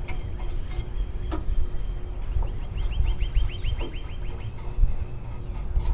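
A bird's rapid trill: a run of about fifteen short, high, evenly spaced notes, roughly nine a second, lasting about a second and a half, starting about two seconds in. Under it is a steady low rumble and a few faint taps.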